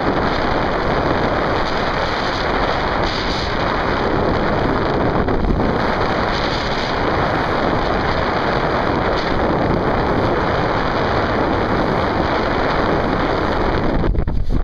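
Water rushing and splashing along the lee side of a heeled sailboat's hull at over 8 knots, mixed with wind buffeting the microphone. Near the end the water sound falls away, leaving mostly low wind rumble.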